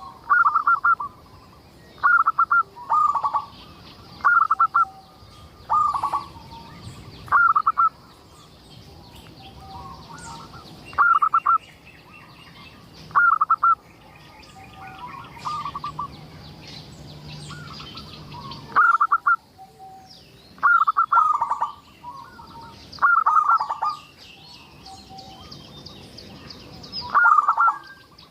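Zebra dove (perkutut) singing: short, loud, clipped cooing phrases repeated every second or two, with a few longer pauses. Smaller birds chirp faintly and higher-pitched in the background.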